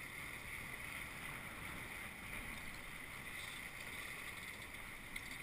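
Steady rush of water along the hull of a Tornado catamaran under sail, mixed with wind on the microphone.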